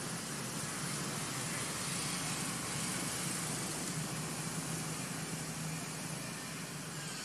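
Steady outdoor background noise: an even hiss with a low hum underneath, with no distinct events.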